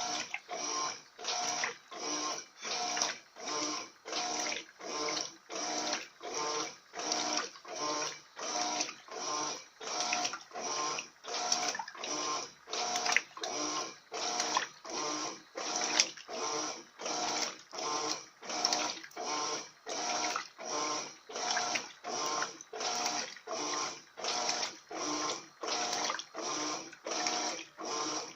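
Electrolux LF80 top-loading washing machine agitating a load of bed sheets in a high water level: a steady, regular swish of water and laundry churned back and forth, a little under two strokes a second.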